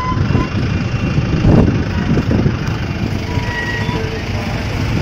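A vehicle driving on the road, heard from inside its cab: a steady low rumble of engine and road noise, with a few faint brief tones.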